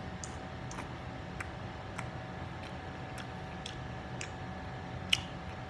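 Close-up chewing of a mouthful of fried sausage, with soft wet mouth clicks coming regularly a little under twice a second and one louder click near the end, over a low steady hum.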